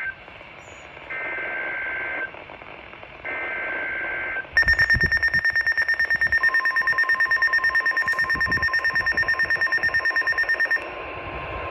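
Three short two-tone data bursts of an Emergency Alert System end-of-message signal, then a loud, fast-pulsing electronic alarm beep for about six seconds. A steady lower tone joins partway through the beeping and carries on after it stops.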